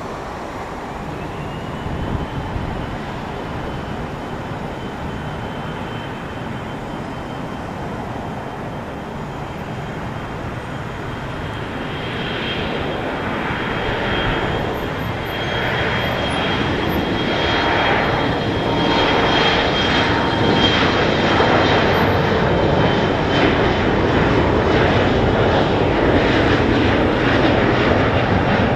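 The twin GE CF34-8E turbofans of an Embraer E175 spool up to takeoff thrust. A high whine rises about a second in and then holds steady. The engine noise grows louder as the jet accelerates down the runway.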